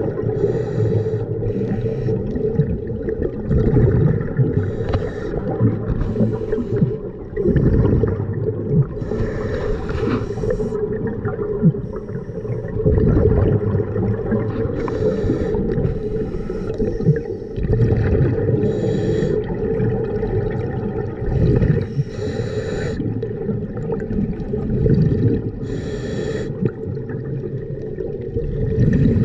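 Scuba diver breathing through a regulator, heard underwater: repeated short bursts of exhaled bubbles every second or two, over the steady hum of a sea scooter's motor.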